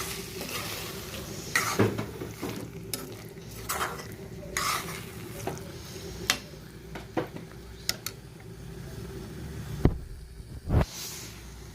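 A utensil clinking and scraping against a cooking pot or pan during stirring, in irregular knocks about a second apart, over a steady hum and faint frying.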